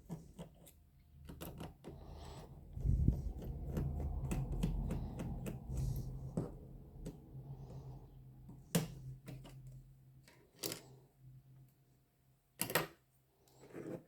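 Small hand tools clicking and scraping against smartphone parts during disassembly: scattered light clicks, a stretch of rubbing and handling noise in the first half, and a few sharper clicks in the second half.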